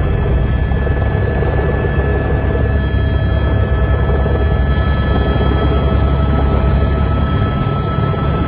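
Helicopter turbine and main rotor running steadily, heard from inside the cockpit during a landing approach: a loud, constant low rumble with a thin, steady high whine on top.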